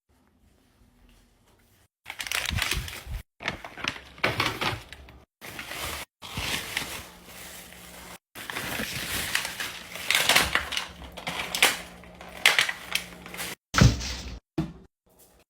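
Plastic packaging and produce being handled, crinkling and rustling in noisy bursts that start and stop abruptly, split into several short cuts with silent gaps between them.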